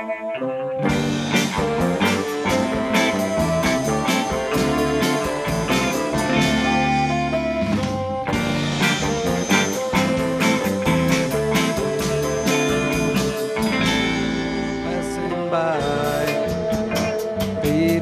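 Live band playing an instrumental passage on electric guitars over a steady beat, coming in at full strength about a second in.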